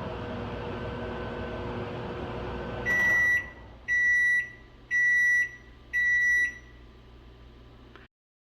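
Microwave oven running with a steady hum, then shutting off about three seconds in and beeping four times, about a second apart, to signal the end of its cooking cycle.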